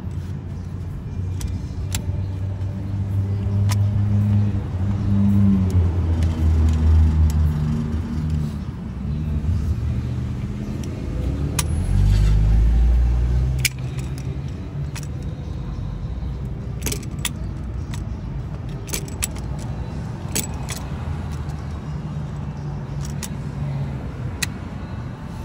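Passing road traffic, a deep vehicle rumble that swells twice in the first half and then settles to a steady background hum. Scattered sharp metal clinks of locking pliers and a wrench working a seized oil cooler line fitting.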